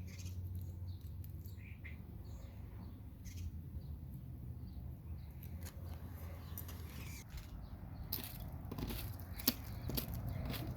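Scattered light clicks and scrapes from wooden beehive frames being handled, coming more often near the end, over a low rumble, with a few faint chirps early on.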